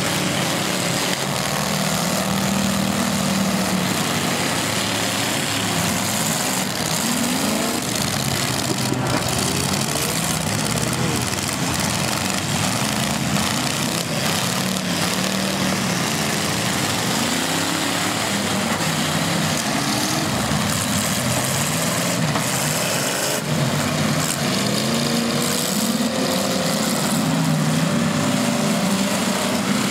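Several demolition-derby car engines running hard, their pitch rising and falling as they rev, over a steady dense roar. A few sharp knocks stand out, about nine seconds in and again past twenty seconds.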